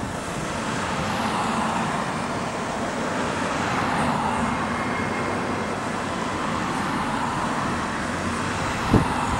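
Steady road traffic noise: car engine and tyre sound on the road.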